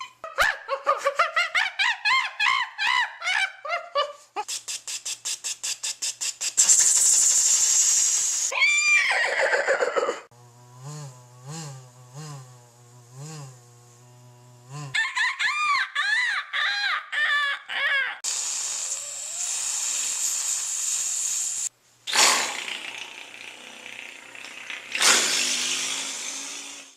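A man making a string of vocal sound effects with his mouth, one after another: warbling bird-like chirps, a rapid run of clicks, hissing rushes of noise, a falling whistle-like glide and a low pulsing tone.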